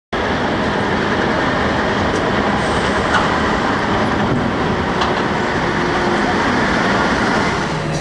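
Kalmar RTD1623 log handler running as it drives, a steady, noisy machine sound with no clear engine tone.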